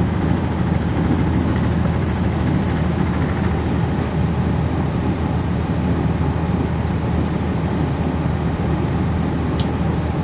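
The Cummins ISC inline-six diesel of a 1999 NovaBus RTS transit bus running at a steady drone, heard from inside the bus.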